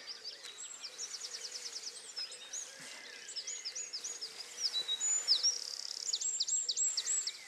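Songbird singing: fast runs of high, quick down-slurred notes in several phrases, loudest near the end.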